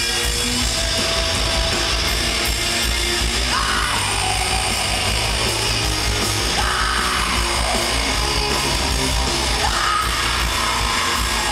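Rock band playing live and loud: distorted electric guitars, bass and drums with yelled vocals, heard from within the crowd. Falling, sliding swoops in pitch come three times, a few seconds apart.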